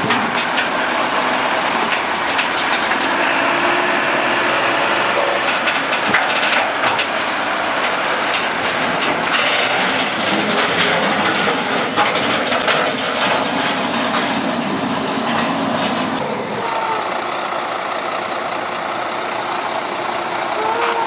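Heavy vehicle engine running, with scattered knocks and rattles; the sound changes character about three-quarters of the way through.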